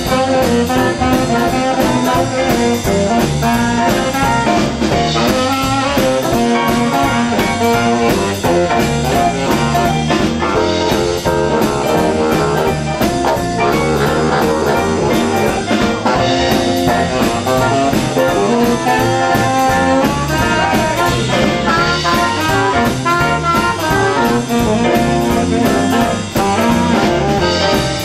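Live swing band playing an instrumental passage: saxophone over hollow-body electric guitar, upright bass and drum kit, at a steady, even loudness.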